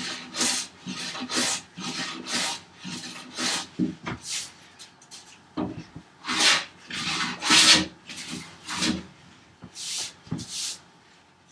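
Hand plane taking short strokes across a laminated wooden workbench top, each stroke a brief shaving sound, about two a second in runs, with pauses about four and a half and nine seconds in. It is shaving down marked high spots to flatten the bench top.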